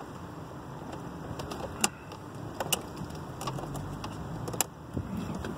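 Sharp plastic clicks and knocks as a VW Golf 4 instrument cluster and its plug connectors are handled and worked into the dashboard opening, a few separate clicks over a steady background noise, the loudest about two seconds in and again near the end.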